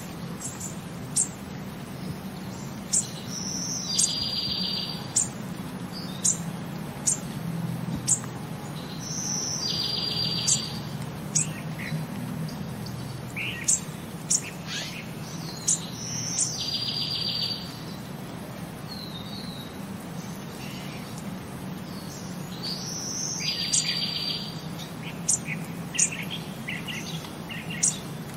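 Birds chirping with short high calls, and a short rapid trill recurring about every six to seven seconds, over a steady low hum.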